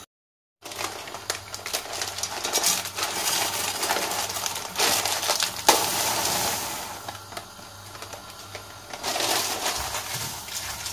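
Dry erişte noodles poured from a plastic bag into a frying pan, a dense crackle of the small pieces landing in the pan along with the bag rustling. Near the end a wooden spoon stirs and scrapes the noodles around the pan, crackling again.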